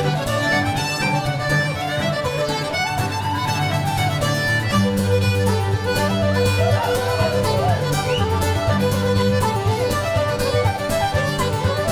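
Irish traditional band playing a reel live: fiddle and accordion carry the tune over guitar and bowed low strings. Sustained bass notes grow stronger about five seconds in.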